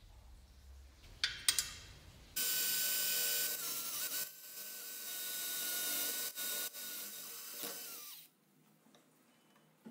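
Power drill running a twist bit into a steel square tube: a couple of short spurts about a second in, then a steady whine for about six seconds that dips twice briefly and stops near the end.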